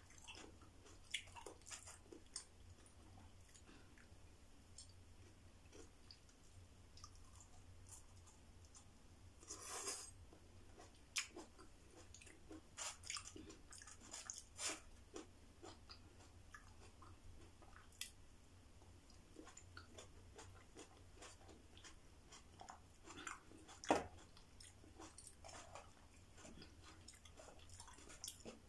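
Quiet chewing and biting of raw vegetables, with scattered soft clicks and crunches over a faint low hum. A brief louder crunching sound comes about a third of the way in, and a sharp click near the end.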